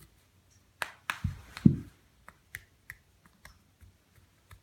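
Small sharp clicks of a ceiling fan's handheld remote being handled and its buttons pressed, repeatedly, with a few louder low knocks from handling between about one and two seconds in.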